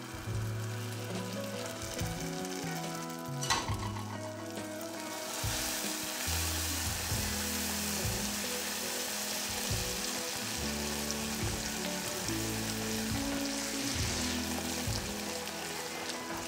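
Hot caramel sizzling and foaming in a saucepan as a block of butter melts into it and a silicone spatula stirs it. There is a single sharp knock about three and a half seconds in, and the sizzle grows louder from about five seconds on.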